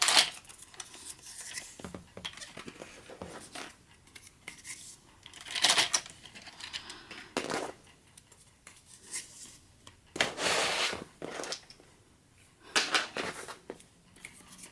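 Foam darts being pushed into the plastic barrel cylinders of a Nerf Zombie Strike Flipfury blaster: irregular plastic rubbing and clicking handling noises in separate bursts, the longest about ten seconds in.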